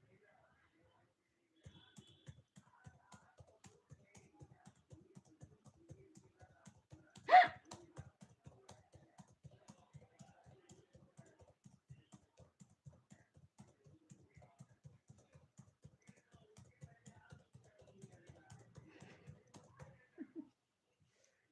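A single loud hiccup about seven seconds in, over rapid soft tapping at about five taps a second.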